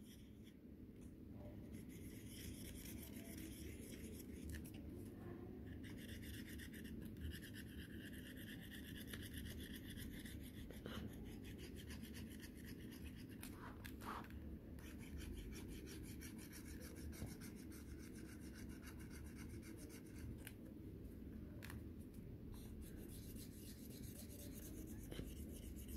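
Faint, steady rubbing of a pen tip over the paper of a magic colouring pad as colour is filled in, with a few light clicks.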